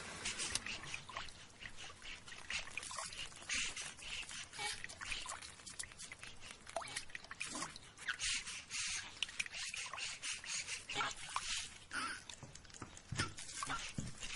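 Irregular wet clicks and crackles with small drips: sound effects for the mandrake root stirring in its bowl of milk as drops of blood fall into it.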